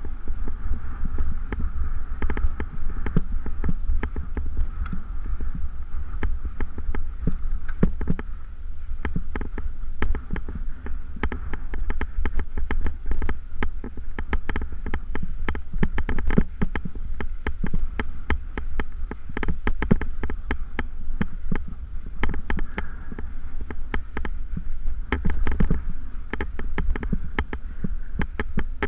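Mountain bike rattling over a rough dirt trail, picked up on a mounted action camera: a steady low wind rumble with a dense, irregular scatter of knocks and clicks from the bike and the ground.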